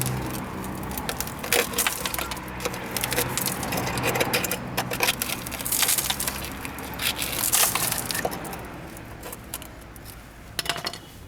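Irregular crunching and crackling: many small sharp clicks and cracks at uneven intervals, growing quieter over the last few seconds.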